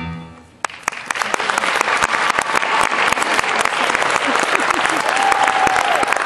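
Audience applauding a children's choir: the choir's last sung note stops right at the start, and dense clapping starts under a second in and keeps going. A few voices call out over the clapping.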